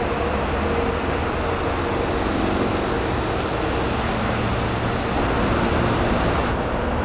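Norfolk Southern GE Dash-9 diesel freight locomotives running steadily as they lead a train of hopper cars, a low engine rumble under the steady rush of the passing train.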